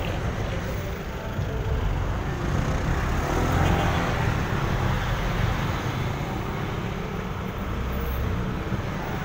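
Steady road noise from riding a motor scooter in traffic, with engine and wind rumble, growing louder about three to four seconds in.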